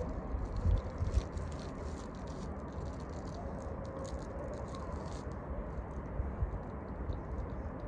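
Wind buffeting the microphone in low gusts, strongest in the first second or so. Faint crackling rustles run through it.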